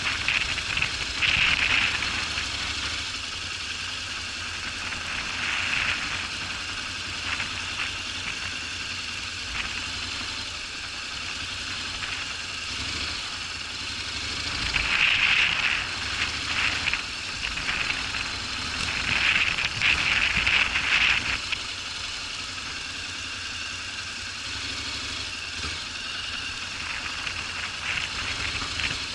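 Honda NC750X DCT motorcycle's parallel-twin engine running at low revs on an off-road ride, with rattling. Two louder stretches of rushing noise come around the middle.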